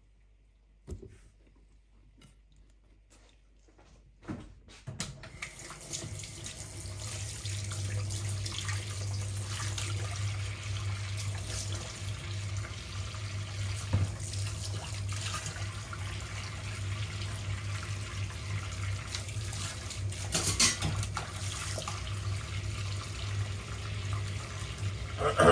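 Kitchen tap running steadily into a sink, turned on about five seconds in, while cutlery is washed under it, with a few clinks near the end. A single knock comes about a second in.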